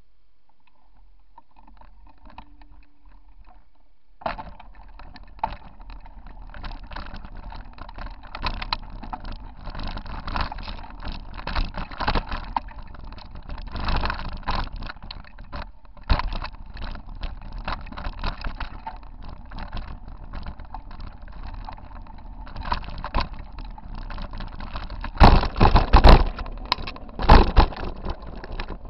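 Mountain bike rattling and jolting over a rocky dirt trail, picked up through the frame by a handlebar-mounted camera. It sets in about four seconds in as a constant clatter of small knocks, with several heavy jolts near the end.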